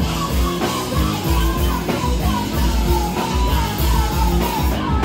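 Live punk rock band playing loud: distorted electric guitars and a pounding drum kit, with the singer yelling into the microphone.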